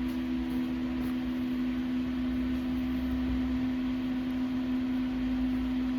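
A steady mechanical hum: two constant low tones over a faint hiss, unchanging throughout.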